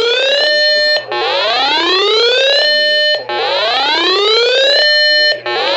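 Loud electronic siren-style alarm from a weather alert radio sounding for a tornado warning. Each cycle is a rising whoop that climbs for about a second and a half, holds briefly and stops, repeating about every two seconds.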